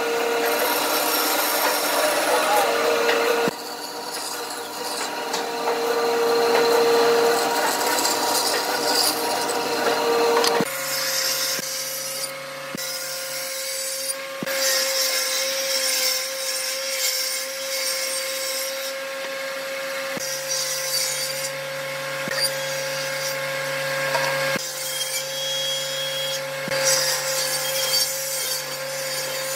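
A bandsaw running and cutting through a pine board, its tone wavering as the blade works. About ten seconds in it gives way to a different stationary woodworking machine running with a steady hum as pine boards are pushed along its fence.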